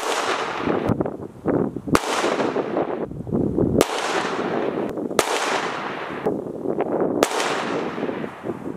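Handgun fired five times at a slow, aimed pace, about one and a half to two seconds between shots: a five-shot group fired to zero a red dot sight. Each shot is followed by a long echo that fades away.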